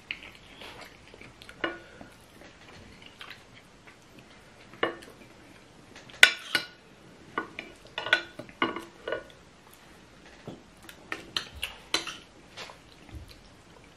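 Metal spoons clinking and scraping against ceramic plates as two people eat rice, in scattered short clicks, with a louder knock about six seconds in.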